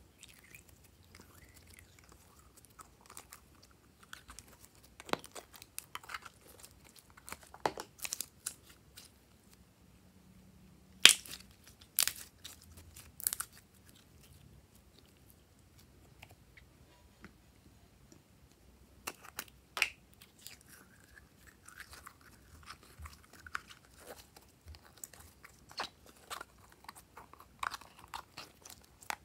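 Glossy slime being squished and folded by hand, giving scattered sharp pops and sticky crackles, with a few louder snaps about 11 to 13 seconds in.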